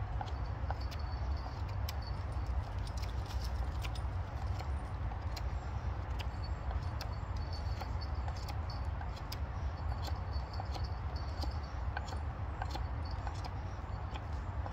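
Knife whittling a point on a wooden stake: a run of short, uneven scraping clicks as each shaving comes off the wood, over a steady low rumble.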